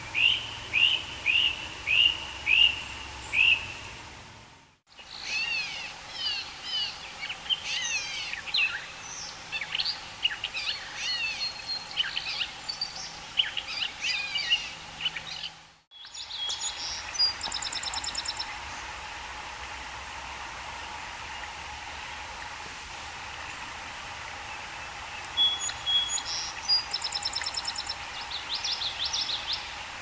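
Songbirds singing in three stretches, each ending in a brief fade: first a run of about seven short, evenly spaced notes, then a busy jumble of varied song, then high buzzy trills and quick note series, over a steady background hiss.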